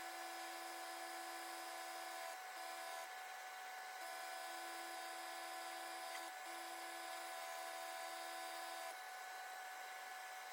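Airbrush spraying under a running cooker extractor fan: a steady motor hum with a hiss of air. The hum and hiss dip briefly a few times.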